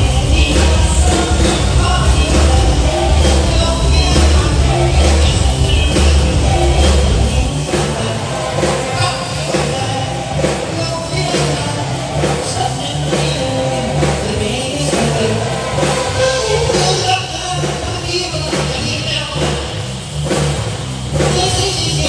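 Loud pop-rock music with singing played through a stage PA system. The heavy bass drops out about seven and a half seconds in, leaving drums, vocals and the higher parts.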